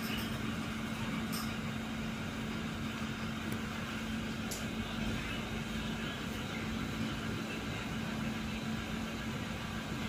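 Mt. Edma Tornado 54-inch ceiling fan running steadily: a constant low hum under a wash of air noise.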